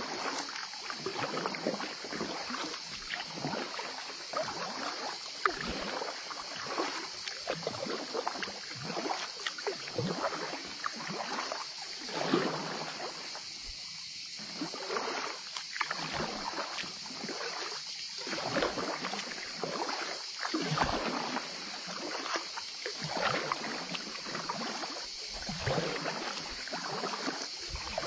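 Kayak paddle dipping and pulling through calm water, stroke after stroke, with splashes and drips, over a steady high hiss. The strokes pause briefly about halfway through.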